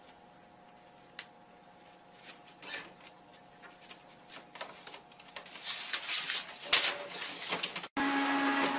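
Printer running and feeding paper: a faint steady hum with scattered clicks at first, then denser clicking and paper rustling that grow louder as a cat pushes into the sheets coming out. Near the end the sound cuts off sharply and a different printer starts, running louder and steadier with a mechanical whir.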